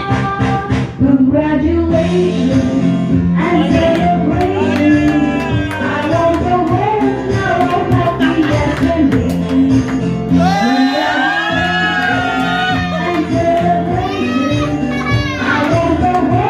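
Music: a voice singing a wavering melody over steady instrumental backing.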